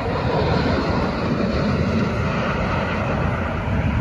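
Two jet aircraft flying past low in formation, their engine noise steady and loud, with a falling pitch at the start as they go by.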